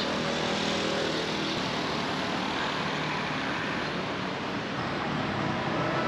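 Motor scooter on the move: a steady rush of wind and road noise with a faint engine hum underneath.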